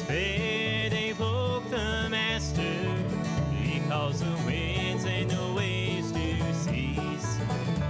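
Bluegrass band playing a gospel tune: strummed acoustic guitar and banjo over a steady bass beat.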